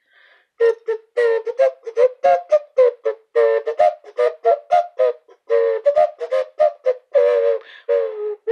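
A quick tune of short notes, about four a second, stepping up and down within a narrow range, blown through a breast-shaped novelty prop held to the mouth.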